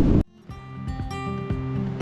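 Strong storm wind buffeting the microphone, cut off abruptly about a quarter second in. After a brief gap, background music with acoustic guitar begins.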